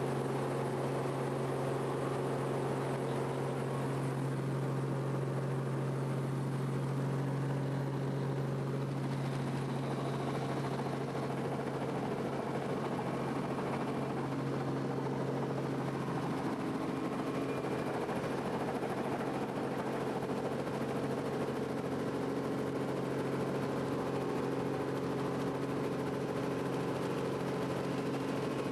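Robinson R44 helicopter's rotor and six-cylinder Lycoming piston engine heard from inside the cabin in flight: a steady drone with a strong low hum.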